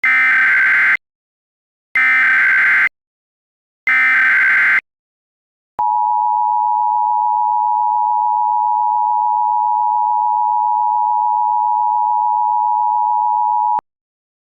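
Emergency Alert System tones: three short SAME header data bursts, each about a second long and two seconds apart, then the two-tone EAS attention signal held steady for about eight seconds before cutting off.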